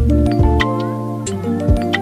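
Background music: held chord tones over a beat of deep thuds and sharp clicks.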